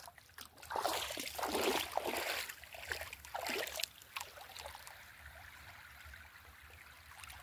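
Shallow sea water at the shoreline of a calm bay: about three seconds of irregular splashing and swishing, then settling to small waves lapping quietly at the shore.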